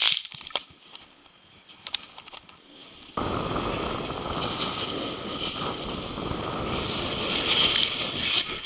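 Steady rush of wind on an action camera's microphone and a snowboard sliding over packed snow during a downhill run. It cuts in abruptly about three seconds in, after a quieter stretch with a few faint clicks.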